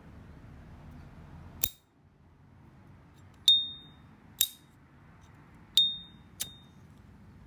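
S.T. Dupont Line 2 gold-plated lighter's lid being snapped shut and flicked open: a series of five sharp metal clicks. Most ring on briefly as a high, clear ping, the lighter's well-known 'cling' when the lid opens.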